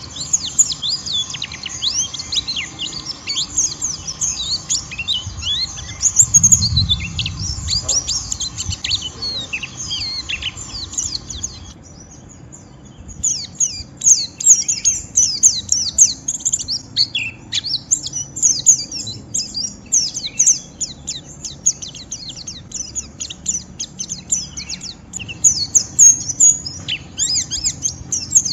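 White-eye (pleci) giving its rapid, rough twittering 'ngeriwik' song: dense runs of quick, high chirps that each sweep downward. The song stops for about a second a little before the halfway point, then picks up again.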